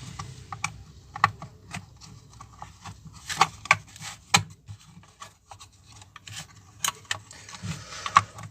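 Irregular clicks and knocks mixed with rubbing and scraping, the sound of small objects being handled, with the loudest cluster about three to four and a half seconds in.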